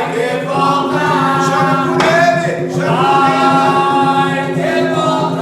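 A group of voices singing an Umbanda ponto (ritual chant) together, unaccompanied, in long held notes that slide between pitches.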